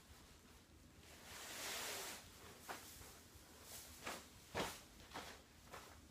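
A person moving about on a painted canvas laid over plastic tarp: a soft rustling swell of sheeting about a second in, then a handful of light, irregular footfalls and knocks on the tarp.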